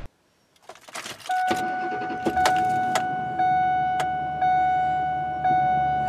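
Keys rattle in the ignition of a 2003 Ford F-150, and the engine starts and idles with a low rumble. Over it the dashboard warning chime dings steadily, about once a second.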